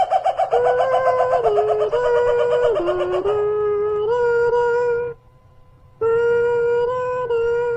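An eerie wailing tone made of long held notes that step up and down in pitch like a slow melody. It wavers rapidly for the first few seconds, then goes steady, breaking off briefly about five seconds in.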